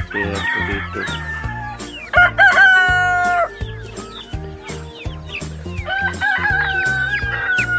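Free-range chickens clucking, with a rooster crowing loudly about two seconds in and another long crow near the end, over background music.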